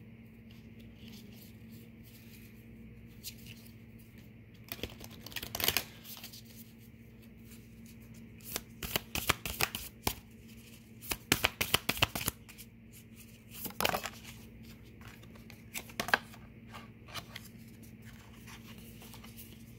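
A deck of oracle cards being shuffled and handled by hand: irregular clusters of quick card flicks and taps, densest a little past halfway, over a faint steady hum.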